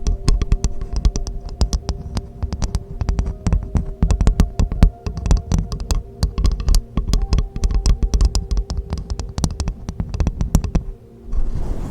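Rapid, irregular close-up tapping and clicking, many sharp clicks a second, over faint steady low tones; the clicking stops about eleven seconds in, followed by a brief soft rush.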